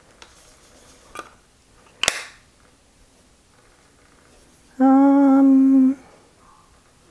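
A woman hums one steady note for about a second near the end, the loudest sound here. Before it come a few light clicks from a plastic pressed-powder compact being handled, the sharpest about two seconds in.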